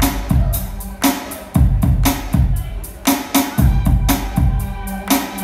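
Live song with a steady drum beat of kick and snare hits over sustained bass and chords, without vocals.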